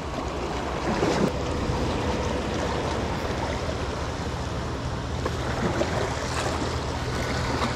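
Small sea waves washing and splashing against the rocks of a stone jetty, a steady wash of water noise.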